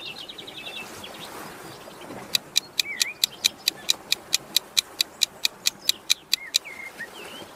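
Countdown timer sound effect ticking rapidly, about five ticks a second, starting about two seconds in and stopping shortly before the end. Bird chirps run underneath, with a quick falling trill at the start.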